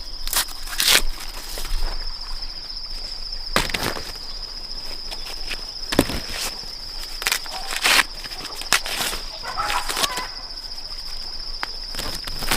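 Insects chirping in a steady high-pitched drone, with irregular dry rustles and crunches over it, the loudest about a second in, near four seconds, at six seconds and near eight seconds.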